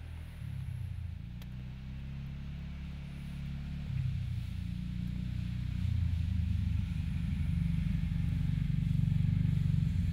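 A motor vehicle's engine running at low revs, its low hum shifting in pitch and growing louder as it comes closer.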